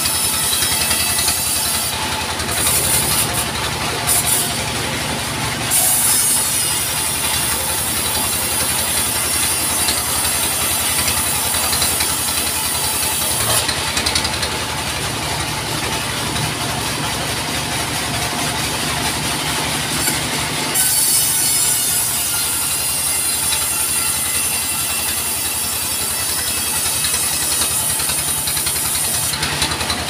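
Engine-driven portable band sawmill running steadily while its blade saws through a log. The high cutting hiss drops out briefly a few times over the engine's drone.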